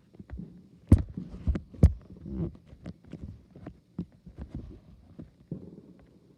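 Fireworks going off in the distance: two sharp bangs, about a second in and again just under a second later, amid scattered smaller pops and low thumps.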